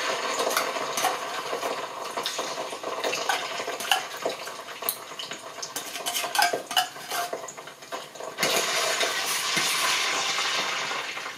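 Metal spoon scraping and clinking against a small tin of tomato paste and the rim of a stainless steel pot, over the sizzle of the paste frying in hot groundnut oil. The sizzle grows louder about eight and a half seconds in.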